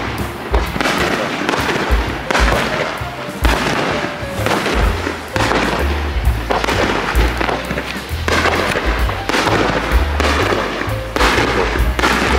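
Aerial fireworks bursting in an irregular string of bangs and crackles, over background music with a stepping bass line.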